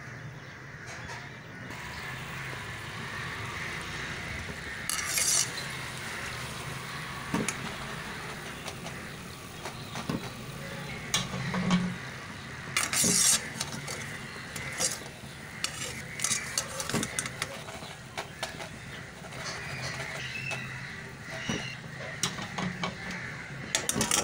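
Kitchen handling sounds: scattered clinks and knocks of utensils against dishes and a board, over a steady background hum.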